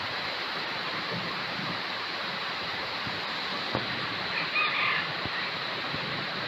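Steady hiss of rain falling over wet grass and mud, with a brief high call about four and a half seconds in.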